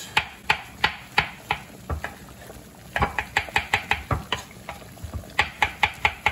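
Kitchen knife slicing cremini mushrooms on a wooden cutting board, each cut ending in a sharp tap on the board. The cuts come in three runs with short pauses between, the first run slower and the later two quicker, about five cuts a second.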